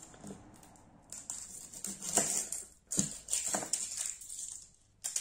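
Dry papery onion skin crackling and rustling as it is peeled off by hand, in several short crinkly spells from about a second in.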